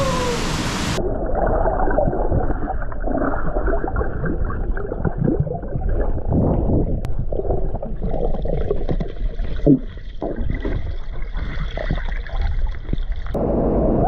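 Muffled underwater gurgling and bubbling heard through a submerged camera as a swimmer dives in a cave pool. Near the end the sound opens out suddenly into air as she surfaces with splashing.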